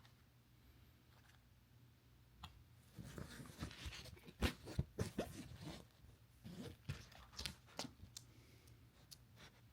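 Packaging of a card deck being handled and opened by hand: crinkly rustling with small clicks and taps, clustered in the middle after a quiet first few seconds.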